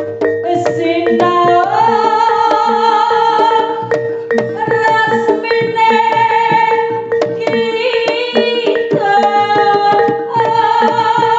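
Jaranan accompaniment music: quick drum strokes under long, held melody notes that slide up about a second and a half in and shift pitch twice more, over one steady sustained note.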